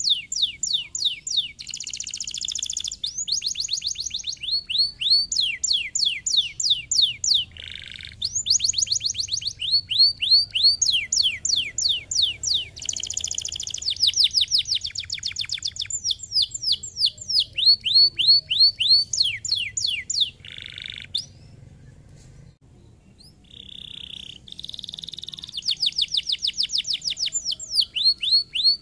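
Domestic canary song: long trilled phrases of rapidly repeated down-slurred whistles, alternating with buzzier rolling notes, with a short break about two-thirds of the way through.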